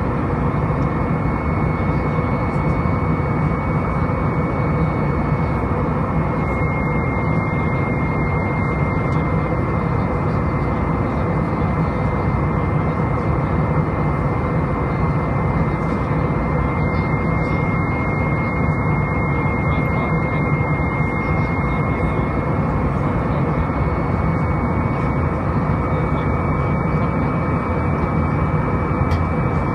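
Airbus A319's CFM56 turbofan engines and airflow heard inside the cabin during the climb: a steady rush of engine and wind noise with a high, steady whine that drops a little several seconds in and rises again near the end.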